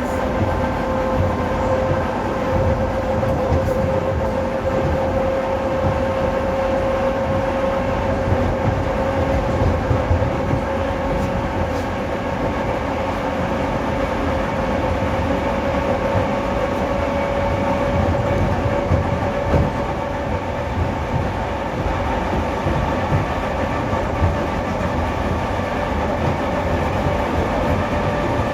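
ED4M electric multiple-unit train running under traction power: a steady whine from the traction motors and gearing over a constant rumble and rail clatter, the whine rising slowly in pitch as the train gathers speed.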